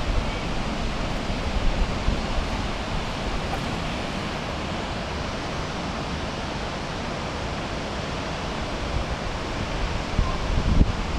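Steady rush of falling water from Shōmyō Falls, Japan's tallest waterfall. Wind buffets the microphone with low rumbling gusts at the start and again about ten and a half seconds in.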